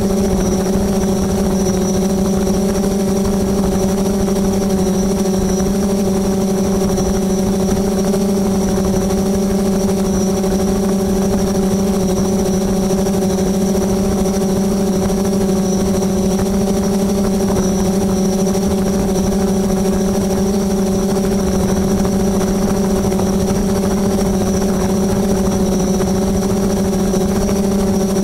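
Quadcopter drone's propellers and motors humming steadily at one pitch as it hovers, with a thin high whine above the hum.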